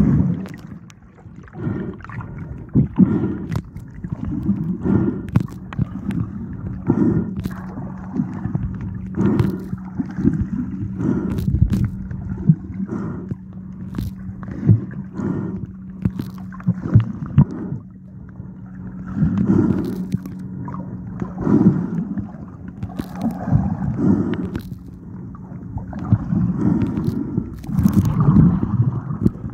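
Muffled sloshing and gurgling of water around a camera held under the surface, with scattered sharp clicks and knocks. A steady low hum runs through most of it.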